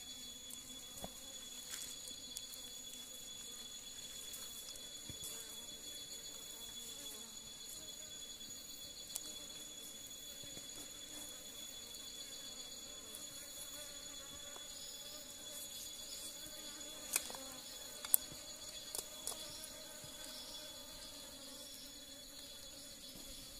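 Forest insects calling steadily, a continuous high-pitched chorus with a pulsing trill. A few sharp clicks come about two-thirds of the way through.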